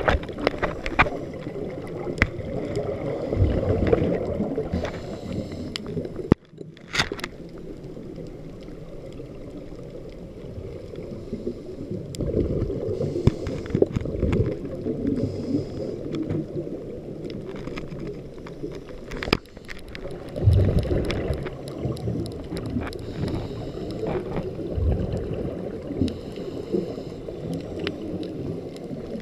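Muffled underwater noise heard through an action camera's waterproof housing: a low rushing, gurgling rumble of water and bubbles, swelling every few seconds with scuba breathing. A sharp knock about seven seconds in.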